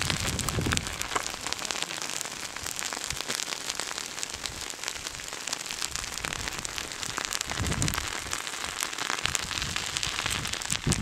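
Advancing pahoehoe lava crackling, ticking and popping continuously as the hot new lava covers the older flow and breaks its cooled crust. Brief low rumbles come near the start and again about eight seconds in.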